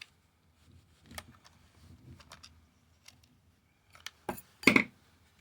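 Small clicks and taps of cordless drill motor parts being handled, ending in a few sharper, louder clacks near the end.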